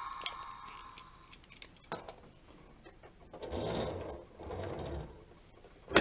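Plastic clicks and scrapes as a toy garbage truck and its small plastic wheelie bins are handled and set down on a wooden table, with two short scraping rumbles past the middle and a sharp click at the end. An electronic tone from the toy fades out in the first second.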